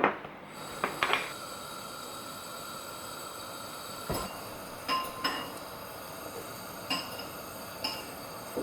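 Scattered clinks and knocks of kitchen utensils and dishes, about seven in all, several ringing briefly, over a steady faint hiss.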